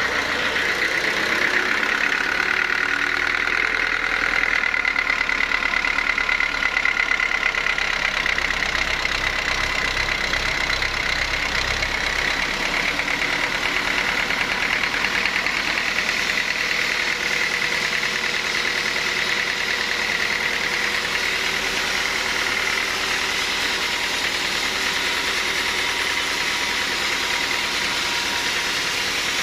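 Sawmill machinery running steadily, with a low hum underneath that drops away about twelve seconds in.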